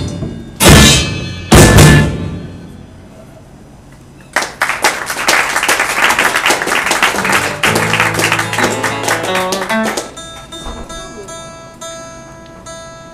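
A live rock band ends a song on two loud hits with cymbal crashes that ring out and fade. After a short lull, a guitar is strummed rapidly for several seconds, then gives way to a few steady held notes.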